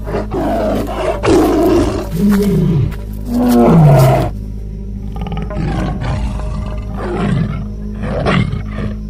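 A series of lion growls and roars, the loudest about three to four seconds in with a falling pitch, then shorter, weaker growls toward the end. A steady low music drone runs underneath.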